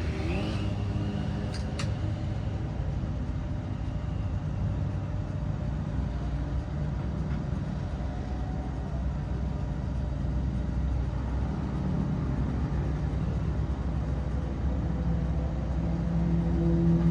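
Steady low engine rumble, with a couple of sharp clicks about two seconds in.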